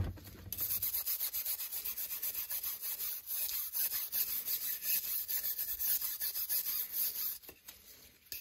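Brass wire brush scrubbing the wet, rusty steel blade of a combination square in quick back-and-forth strokes, rubbing off rust and dark oxidation loosened by an Evapo-Rust soak. The scrubbing starts about half a second in and pauses near the end.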